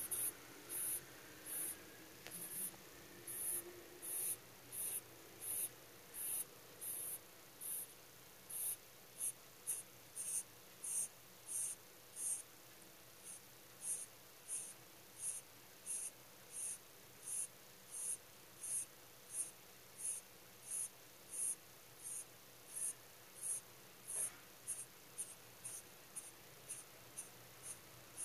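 Sleeping rabbit snoring: short, high, hissing breaths in an even rhythm, about one and a half a second at first and quickening to about two and a half a second.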